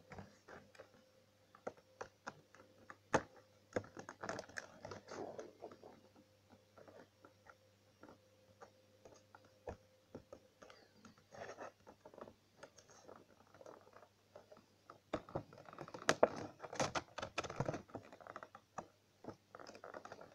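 Scissors and hands working at a clear plastic toy box: irregular snips, clicks, scrapes and crinkles of plastic and card. The handling is busiest about four seconds in and again from about fifteen to eighteen seconds.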